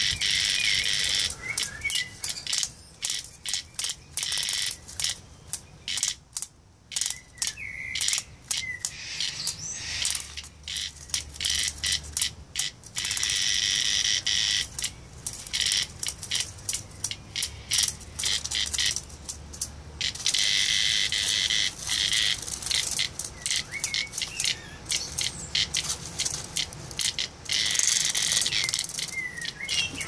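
Cicada buzzing in its distress call, in irregular stuttering bursts with a few longer unbroken buzzes, set off by a puppy pawing and nosing it.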